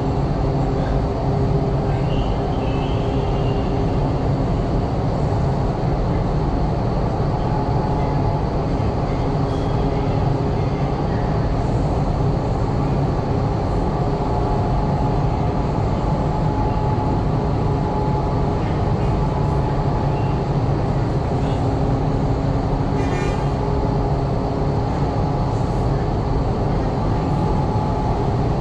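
Steady road-vehicle noise, a continuous low rumble with faint steady tones coming and going.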